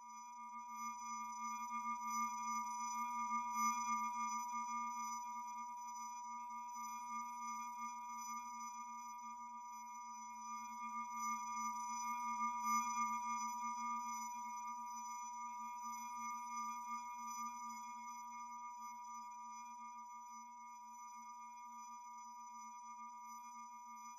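Soft sustained drone of several steady held tones, like an ambient synth pad under opening titles. It swells slowly, peaking about four and thirteen seconds in, then eases off.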